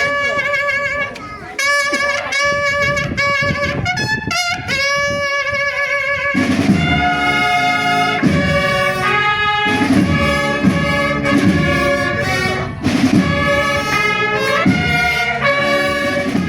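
Brass band playing a tune: trumpets and saxophones carry the melody, and lower brass join in to fill out the sound about six seconds in.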